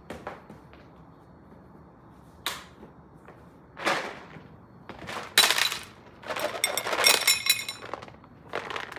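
Dry cat kibble rattling in its container and clattering onto a plate, in several short bouts. The loudest and longest bout comes a little past the middle, with a ringing clatter.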